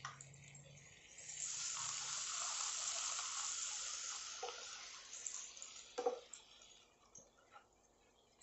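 Wet onion-garlic paste sizzling in hot oil as it is stirred into frying banana stem with a wooden spatula. The sizzle rises about a second in, holds for a few seconds and dies away, with two knocks of the spatula against the pan.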